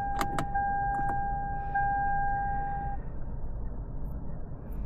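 A steady electronic tone that sounds afresh twice and cuts off about three seconds in, with three sharp clicks in the first second or so, over a steady low rumble.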